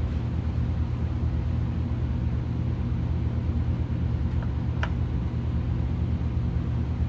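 A steady low mechanical hum, with one light click about five seconds in.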